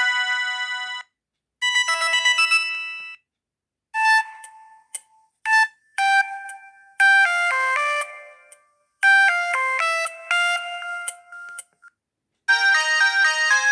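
Samsung SGH-Z240 mobile phone playing ringtones: short synthesized melodies of quick, high, bright notes, several sounding together. They break off into brief silences and start again a few times.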